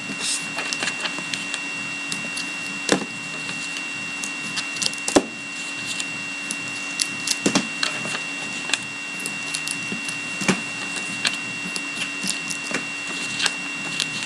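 Card packs being handled and set down on a table: scattered light taps and clicks, over a steady faint high whine and low hum.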